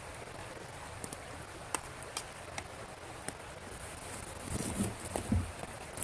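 Wood campfire crackling: scattered sharp pops over a steady hiss, with a few low thumps near the end.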